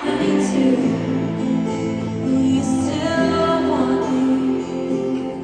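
A slow, gentle song begins abruptly, with held chords, played live by two performers with guitars through a stadium sound system.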